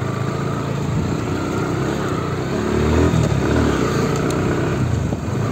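Bajaj Pulsar NS160's single-cylinder engine, heard from the rider's seat, accelerating as the bike pulls away. Its pitch rises about two to three seconds in, then drops back and runs steadily.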